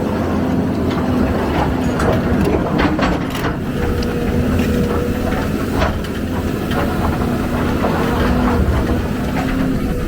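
Heavy diesel excavator engine running steadily under load, with scattered sharp metallic clanks and knocks.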